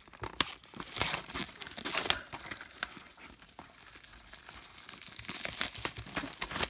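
Cellophane shrink-wrap crinkling and tearing as it is peeled off a plastic Blu-ray case. The crackles come in an irregular run, with a louder sharp snap near the end.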